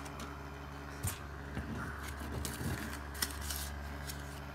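Low steady electrical hum with a few light clicks and rustles of handling scattered through it, one sharper click a little past the middle.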